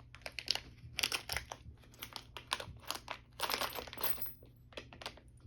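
Packaging rustling and crinkling, with a run of small clicks and taps, as a pre-cut AR trigger is taken out of its package; the densest crinkling comes about three and a half seconds in.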